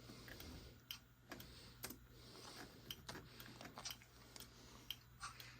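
Faint, irregular clicks and taps of a computer keyboard and mouse being worked, about a dozen scattered over a few seconds, over a low steady electrical hum.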